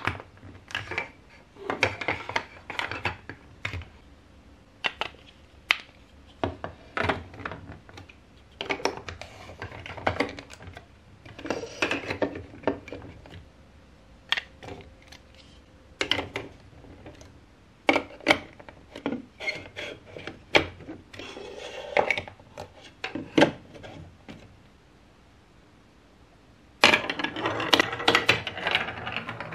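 Plastic marble-run track pieces and building blocks being handled and pressed onto studs, with irregular clacks and clicks. Near the end a marble begins rolling down the plastic track with a continuous rattle.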